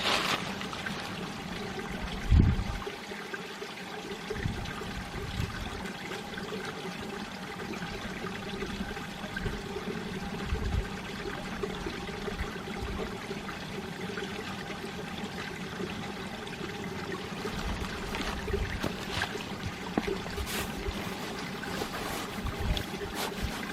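Mountain valley stream running and trickling over rocks, a steady rush of water, with a few low thumps, the loudest about two and a half seconds in.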